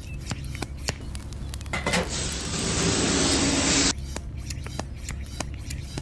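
Small clicks and rubbing of plastic parts as the pump nozzle on a toy water tanker is fitted by hand, with a steady spray hiss for about two seconds in the middle.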